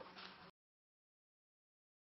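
A sharp click and faint room sound, cut off completely about half a second in, then total silence.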